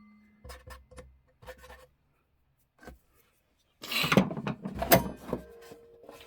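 Clock parts being handled during a teardown: a few small clicks, then a loud scraping rub lasting about a second and a half, followed by a faint ringing tone that dies away slowly.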